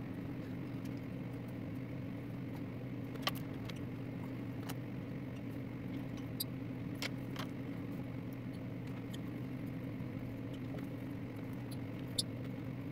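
A steady low hum with a few sharp, light clicks and taps scattered through it.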